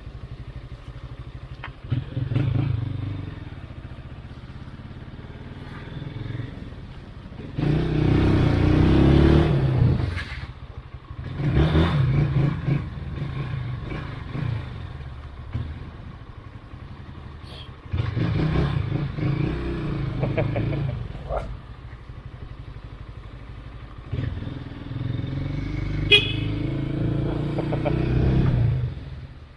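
Honda CB190R's single-cylinder engine running while ridden, opening up in about four bursts of acceleration and easing back to a lower, steadier note between them. There is a sharp click about two-thirds of the way through.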